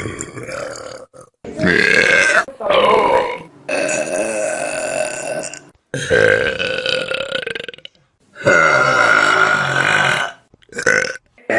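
A string of loud, long burps by several people, one after another, each cut off abruptly before the next begins.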